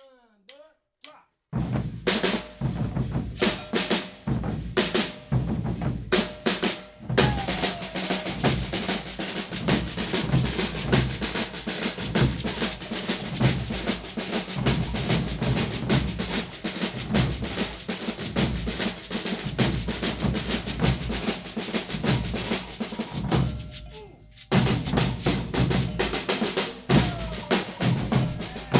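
Brazilian percussion ensemble drumming: a few scattered strokes about a second and a half in, then a steady, dense rhythm of deep drums and snare drums. The group stops briefly near the end, then comes back in.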